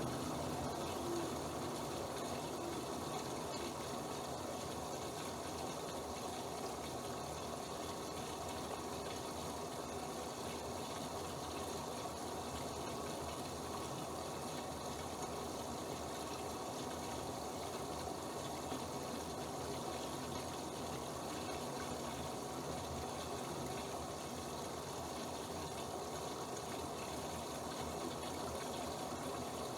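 Bosch WFP3231 washing machine with a steady rush of water running through it.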